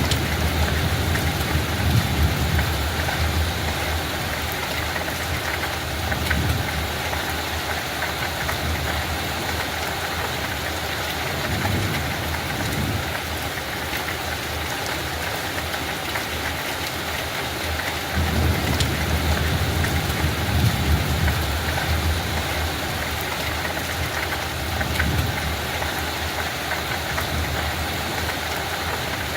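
Light rain falling steadily, an even hiss, with a low rumble that swells and fades every few seconds.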